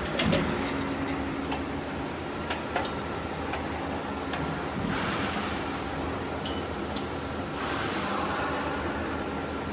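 Downspout-making machine running with a steady hum and a held tone, scattered metallic clicks, and two short hissing bursts about five and eight seconds in.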